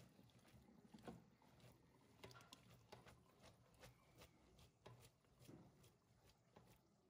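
Near silence, with faint scattered soft ticks and pats as freshly drained spaghetti is tossed about in a bowl.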